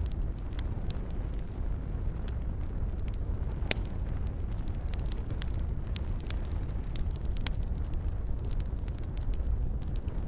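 Wood fire in a fireplace crackling, with a steady low rumble and many sharp irregular pops and snaps, the loudest a little under four seconds in.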